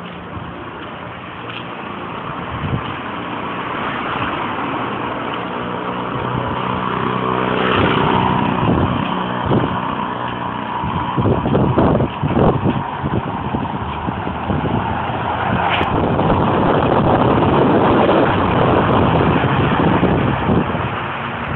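Motor vehicle engine running with road noise, heard from a vehicle moving through street traffic.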